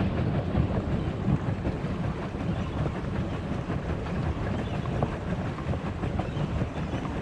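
Pedal boat being pedalled: the pedal drive and paddle wheel make a steady rumbling, clattering churn.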